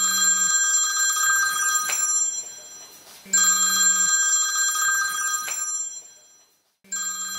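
iPhone ringing with an incoming call: a ringtone sounding in rings of about two seconds separated by short gaps, three rings in all, the last starting near the end.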